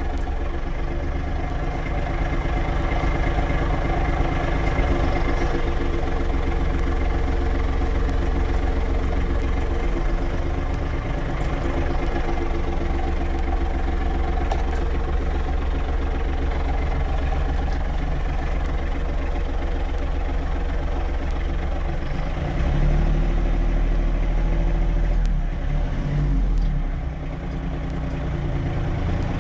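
Iseki GEAS 29 tractor's diesel engine idling steadily, heard from inside the cab. Its low rumble grows louder for a few seconds near the end, then eases.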